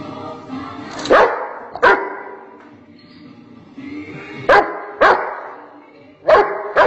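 A dog barking: six sharp barks in three pairs, about a second in, in the middle and near the end.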